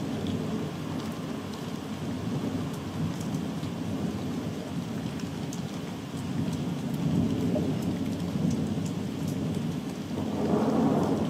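Continuous rolling thunder rumbling without a break under falling rain, with scattered raindrop hits. The rumble swells louder about seven seconds in and again near the end.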